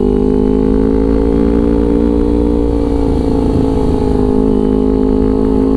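Kawasaki Ninja 250 FI parallel-twin engine running through a Villan New ZX1 aftermarket exhaust at steady cruising revs, its pitch rising a little and then holding level, over a low wind rumble.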